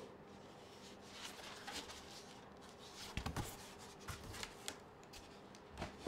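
Faint rustling and scraping of a cardboard installation template being handled and slid over a ceiling cassette unit, with a couple of soft knocks about three seconds in.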